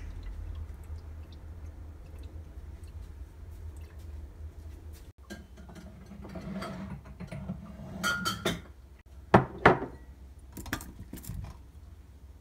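Dishes being moved on a kitchen counter, then glass tumblers set down with two sharp clinks a little past the middle and a few lighter knocks after, over a steady low hum.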